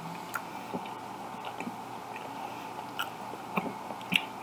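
Someone chewing a hot dog with the mouth close to the microphone: scattered soft, wet mouth clicks and smacks.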